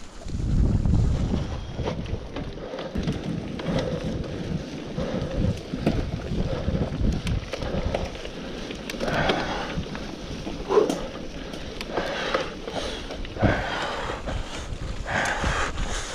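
Mountain bike riding over a dirt trail: tyre noise over the ground with the bike rattling and knocking over bumps, and wind buffeting the handlebar camera's microphone. A heavy low rumble comes in the first couple of seconds.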